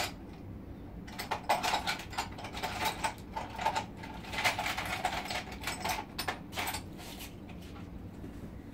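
Household items being rummaged through on a storage shelf: irregular rustling of plastic bags and light knocks of boxes and bins, busiest in the middle and thinning out after about seven seconds.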